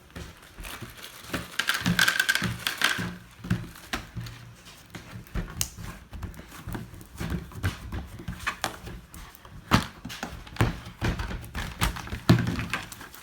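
Scattered clicks and taps of small plastic craft beads and their container being handled as beads are added to slime, with a brief high squeal about two seconds in.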